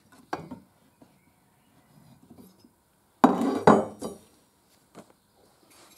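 Stihl TS 420 engine's cylinder being worked off its crankcase and piston: a light metal click, then a louder metallic knock with a short ring about three seconds in, and a small tap after it.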